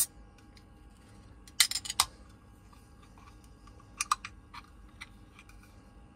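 Sharp clicks and taps from a hand handling an aluminium drinks can: a loud cluster about one and a half to two seconds in, another pair about four seconds in, then a few faint ticks.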